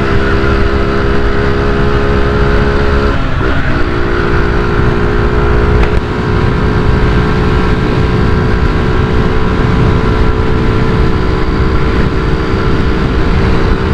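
Honda CG 125i Cargo's single-cylinder four-stroke engine running steadily while riding, with a deep intake growl because the intake hose and air-filter cover have been removed. The engine note dips briefly about three seconds in, then picks up again.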